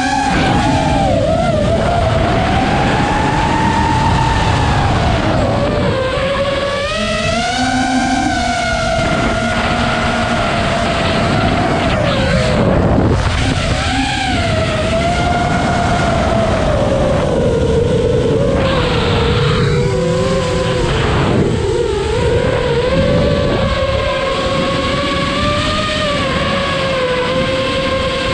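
Armattan Marmotte FPV quadcopter's brushless motors and propellers heard from the onboard camera: a whine whose pitch rises and falls with the throttle, over rushing air noise. Near the end the pitch holds steadier.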